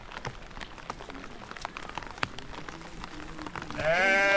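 Rain pattering with scattered drips, then near the end a sheep bleats loudly with a wavering, quavering call.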